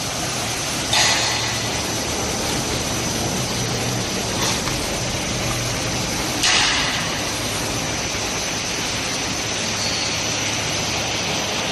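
Corrugated-board rotary die-cutting machine running steadily, a constant mechanical noise with a high whine and a low hum. Short louder bursts come about a second in, faintly near the middle, and again at about six and a half seconds.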